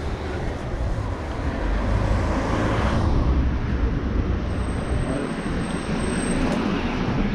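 Street traffic noise, a motor vehicle passing close and loudest about two to three seconds in.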